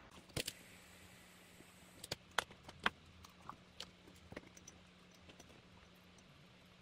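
Sharp clicks and light taps of small parts and tools being handled at a saxophone repair bench: a pair just after the start, then a cluster about two to four and a half seconds in, the loudest near three seconds, over a faint steady hum.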